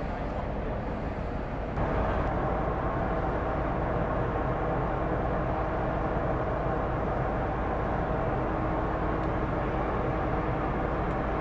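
Ship engines and machinery running: a steady low drone with several held tones over it, growing louder and brighter about two seconds in.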